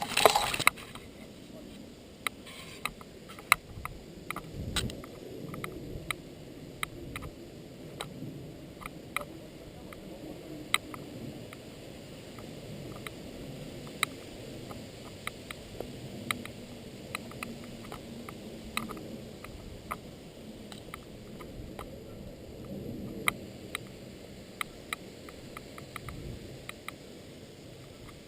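Irregular sharp clicks and snaps over a low, uneven rustling, picked up by a helmet-mounted camera outdoors.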